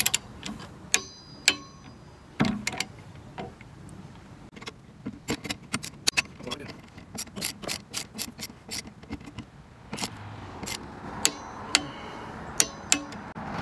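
Click-type torque wrench, set to 40 foot-pounds, ratcheting as bolts are tightened in a crisscross pattern: strings of quick, irregular sharp clicks, a few of them louder snaps.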